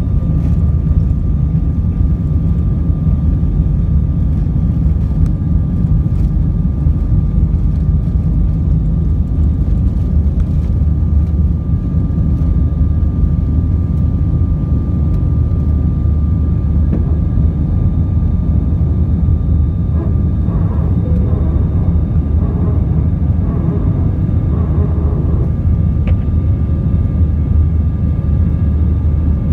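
Jet airliner engines at takeoff thrust, heard from inside the cabin: a loud, steady rumble with a thin, steady high whine through the takeoff roll, liftoff and initial climb.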